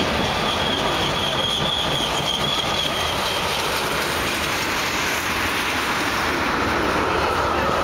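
Manifest freight cars rolling past close by: a steady, loud rumble of steel wheels on rail. A thin, high wheel squeal rings over the first three seconds, and a lower squeal comes in near the end.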